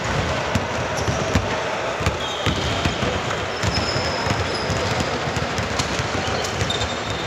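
Basketball game in play: a ball bouncing on the court amid the steady din of a gym, with a few short high squeaks from sneakers on the floor.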